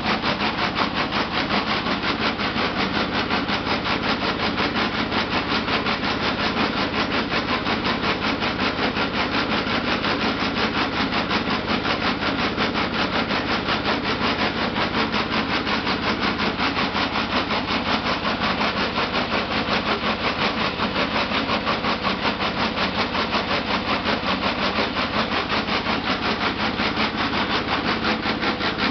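Factory machinery running steadily with a fast, even pulse of about four beats a second.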